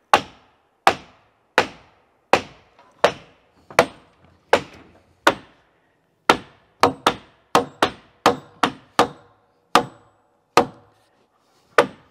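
Hammer blows on wooden wall framing: steady single strikes about one every three quarters of a second, then quicker, uneven strikes from about six seconds in.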